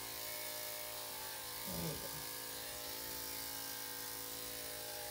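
Electric dog clippers with a #7 blade running with a steady hum while shaving a dog's body coat. A brief voice sounds about two seconds in.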